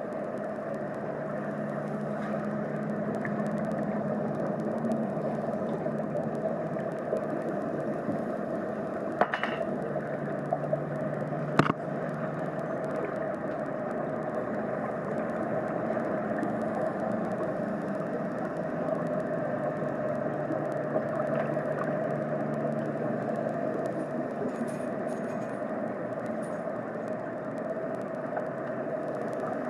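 Steady muffled underwater drone as picked up through an action camera's waterproof housing, with two sharp clicks about nine and twelve seconds in.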